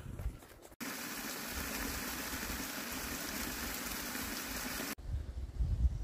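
Steady rush of running water, starting abruptly about a second in and cutting off just as abruptly about a second before the end. Footsteps on the trail come just before and just after it.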